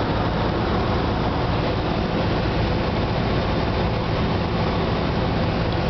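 Cessna 172 Skyhawk's piston engine and propeller droning steadily, heard from inside the cabin along with the rush of air over the airframe, during the descent to land.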